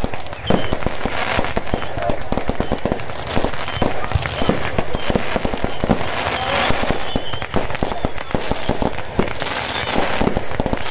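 Fireworks and firecrackers going off in rapid succession: a dense, unbroken run of crackling pops and bangs, with voices underneath.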